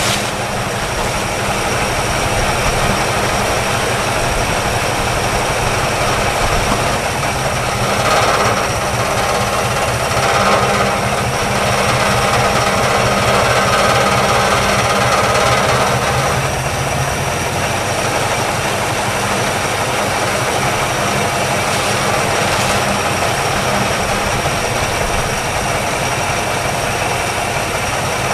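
1962 Chevrolet engine idling steadily, warmed up, with its dwell set at about 29. For several seconds about a third of the way in it runs a little louder, with more high-pitched noise, then settles back to its idle.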